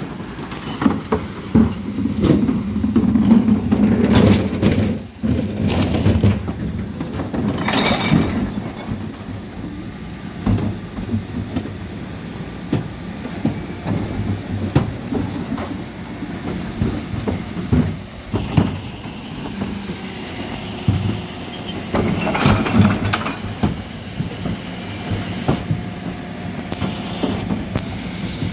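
Mercedes-Benz Econic refuse lorry with an Olympus body emptying blue plastic wheelie bins with its rear Terberg bin lift. The engine and hydraulics run steadily underneath repeated clattering knocks and bangs as the bins are lifted, tipped and lowered, heaviest in a few bursts.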